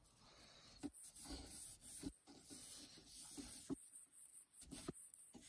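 Faint rubbing of a wipe over the plastic strobe lens of an alarm bell box, broken by a few light knocks as it is handled.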